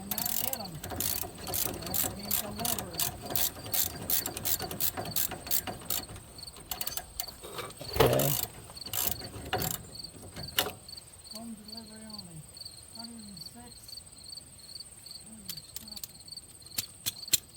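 Hand ratchet wrench clicking in quick, even strokes for about ten seconds, with a louder metallic knock about eight seconds in, then stopping. Insects chirring steadily in the background.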